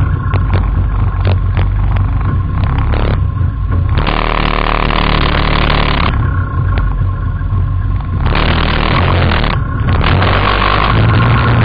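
Quad bike engine running under way, loud and steady, with stretches of rougher noise coming and going.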